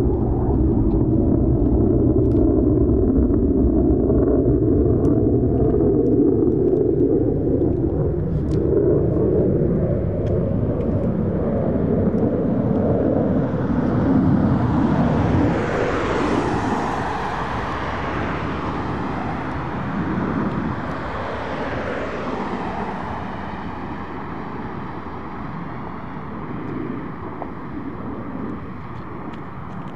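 Jet noise from an EA-18G Growler's twin General Electric F414 turbofan engines as it flies past. A steady low rumble grows harsher and brighter about halfway through, then fades off gradually toward the end.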